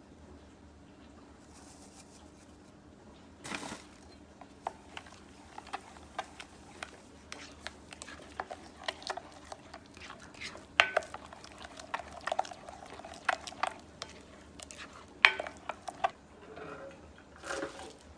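A plastic spoon stirring a thick chili-flake and rice-flour paste in a glass bowl, scraping and knocking against the glass in quick irregular clicks, a couple of them sharper past the middle. A brief rustle comes about three seconds in.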